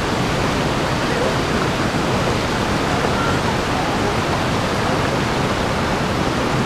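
White water of a rocky stream below a waterfall, rushing steadily at close range.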